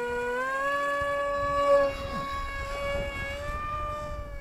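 Motor of a radio-controlled model MiG-35B jet running at high throttle: a steady high whine with many overtones, rising slightly in pitch about half a second in and wavering as the model flies away.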